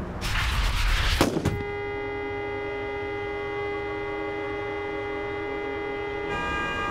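A loud rushing burst lasting about a second, then a car horn held on without a break, its tone shifting slightly near the end.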